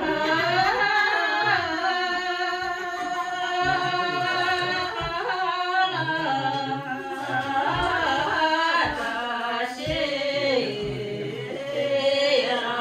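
Singing: a voice holding long, drawn-out notes that bend and waver in pitch.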